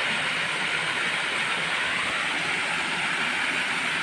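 A steady, even hiss of night-time outdoor ambience, strongest in the upper range, with no breaks.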